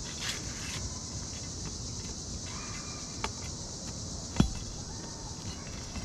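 Sharp knocks of a hand tool working roofing nails out from under ridge shingles, a light one about three seconds in and a louder one near four and a half seconds, over a steady high insect drone.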